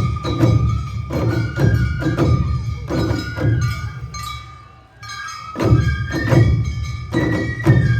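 Awa Odori festival music from a marching band: taiko drums beating a steady, driving rhythm with ringing kane gong strokes and a shinobue flute melody above. The playing drops away briefly a little past the middle, then the drums come back in.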